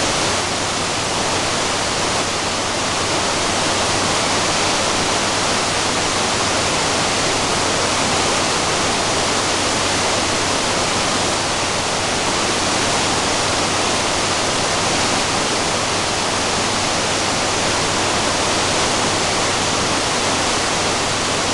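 Maria Cristina Falls, a tall twin-stream waterfall at full flow: a steady, loud rush of falling water crashing into its plunge pool.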